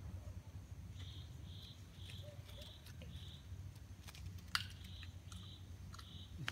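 A small animal's faint chirping call, short high notes repeated evenly about two a second, in two runs with a pause between, over a low rumble. A sharp click about four and a half seconds in.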